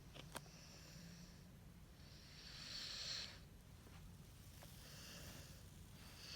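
A sleeping Cane Corso dog snoring softly, with airy, hissing breaths about one every two to three seconds, the first the strongest. There is a faint click near the start.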